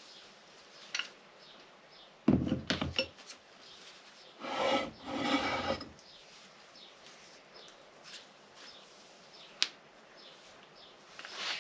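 Workshop handling of metal vise parts during disassembly: a quick rattle of knocks and clunks, then a scraping rub lasting about a second and a half. A single sharp click and a few more knocks follow near the end.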